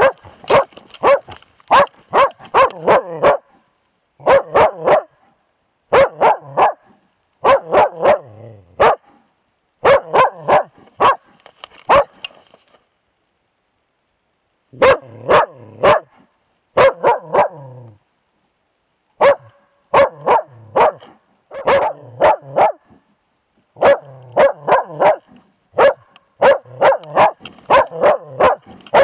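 Young moose-hunting dog barking in quick runs of several barks, very close because the camera is strapped to the dog, with a pause of about two seconds midway. It is baying at a moose cow and calf, the steady barking that holds a moose at bay for the hunter.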